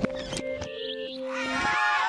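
Cartoon background music played backwards: a few held, steady notes that break off about a second and a half in.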